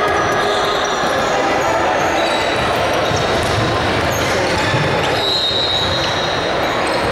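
Basketball bouncing on a hardwood gym floor, with voices echoing in the large hall.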